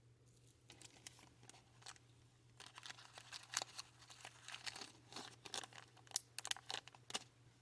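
Small plastic bead bag crinkling and crackling as it is handled and opened, starting faintly and growing denser and louder after a couple of seconds.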